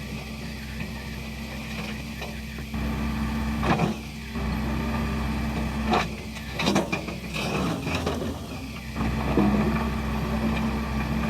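Excavator engine running steadily, its load stepping up several times as the hydraulics are worked, with a few sharp knocks and clanks from the machine.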